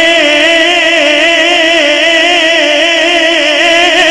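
A man singing a naat unaccompanied through a public-address system, holding one long note with a wavering ornament between the lines of the verse.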